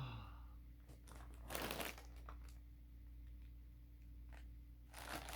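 A package being opened: faint crinkling and tearing of its packaging, with a short louder rustle about one and a half seconds in and more rustling near the end.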